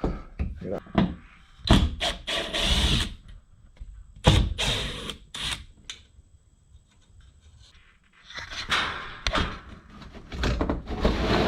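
Irregular knocks, thunks and scraping or rustling as vent filters and their brackets are pulled out of a wall, with a quieter pause in the middle.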